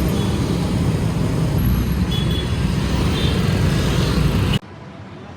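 Dense city road traffic close by: the mixed, steady noise of many vehicle engines and tyres, with a couple of short high tones partway through. It cuts off suddenly near the end to a much quieter outdoor background.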